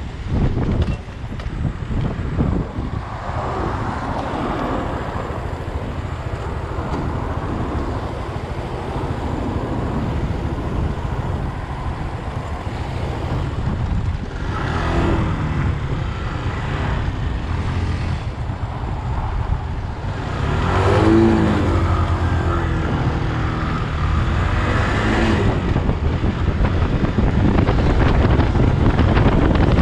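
Daelim Daystar 125 cc V-twin motorcycle engine running at low road speed, heard from the rider's seat. The revs rise and fall a few times midway through and again towards the end as it pulls away and changes gear.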